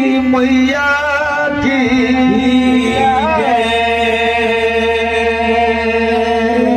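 Devotional singing with music: one voice holds long, steady notes, sliding up and back down in pitch a little after three seconds in.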